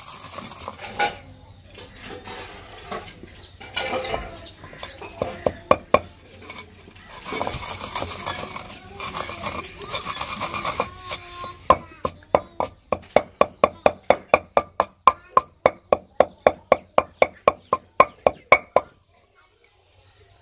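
Dried red chillies being crushed with a wooden pestle in a stone mortar. The first half is uneven grinding and scraping with scattered knocks. The second half is steady pounding strokes at about three a second, which stop a little before the end.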